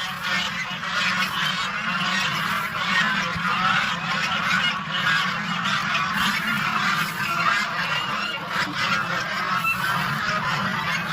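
A flock of domestic geese honking and calling continuously, many voices overlapping without a break.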